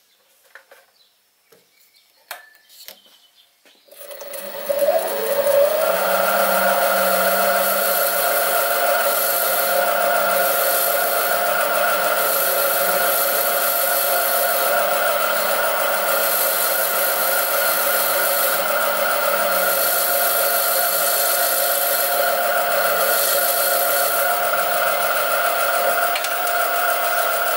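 Sieg SC3 mini lathe starting up about four seconds in, its motor whine rising in pitch and then running steadily while a parting tool cuts off a brass washer.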